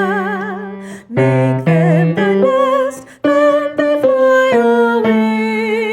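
A woman singing a choir's tenor part an octave up, in held notes with vibrato over steady low sustained notes. The phrases break briefly about one and three seconds in.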